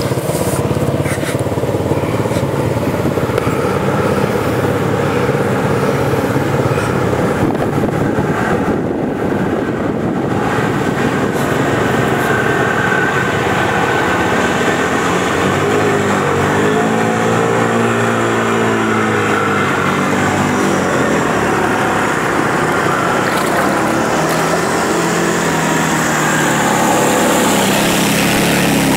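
Three-wheeler and four-wheeler ATV engines running as the machines ride through shallow muddy water. The engine pitch rises and falls in the middle as a rider works the throttle.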